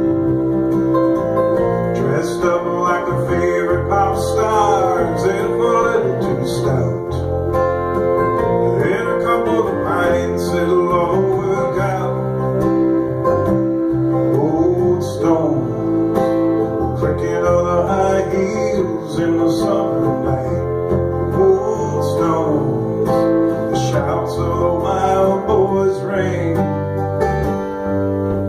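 Live acoustic guitar played with bass guitar in a folk song, steady and unbroken.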